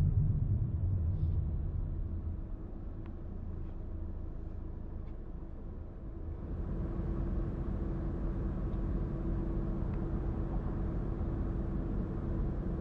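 Street traffic at a city intersection: cars and a city bus passing with a low engine and tyre rumble, loudest at the start, easing off, then rising again with a steady engine hum about six seconds in as the bus goes by.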